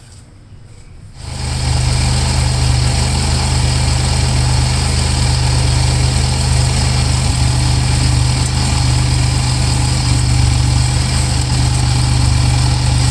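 2005 Pontiac Grand Prix Comp G's supercharged 3.8-litre V6 starting about a second in and then idling steadily with a strong low hum, run so that the freshly refilled transmission's fluid level can be checked.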